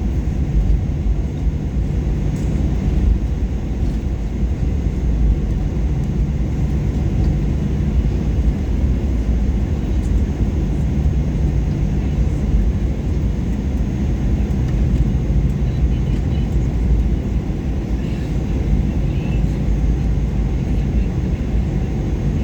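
Cabin noise of a Boeing 737-800 with its jet engines still running after landing, heard from inside the passenger cabin: a steady low rumble with a faint hum.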